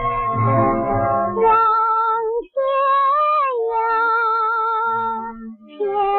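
Old Mandarin popular song recording: a band plays for about a second and a half, then a woman's voice comes in, singing long held notes with vibrato over sparse accompaniment.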